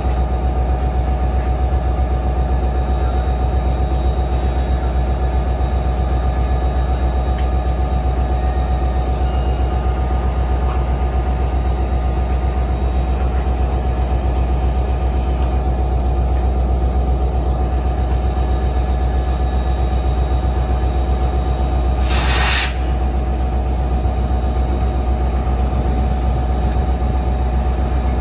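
NJ Transit PL42AC diesel locomotive and its coaches passing at close range: a deep, steady engine drone with the rumble of wheels running on the rails. A short burst of noise cuts in about three-quarters of the way through.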